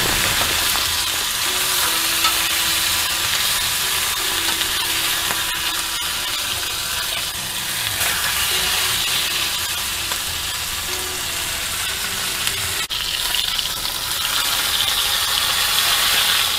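Filet mignon steaks sizzling steadily as they sear in a very hot cast-iron skillet over a high-flame burner.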